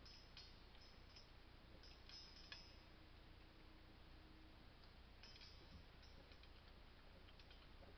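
French bulldog puppy lapping water from a bowl: faint, quick clicks and splashes in short irregular bursts, with pauses between them.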